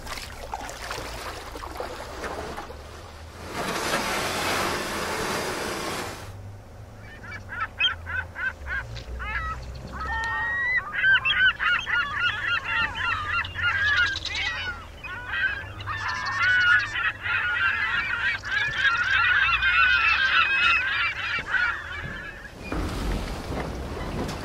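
Geese honking, many calls overlapping as a flock, starting about seven seconds in and stopping shortly before the end. Before the calls there are a few seconds of rushing noise.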